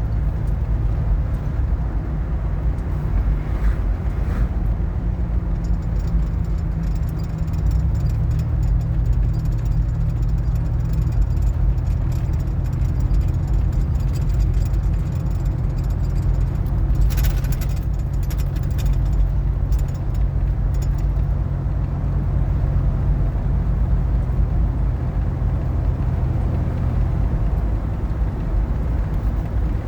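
Car engine and road noise while driving: a steady low hum that changes pitch about a quarter of the way in and again near the end, with a couple of brief rattles.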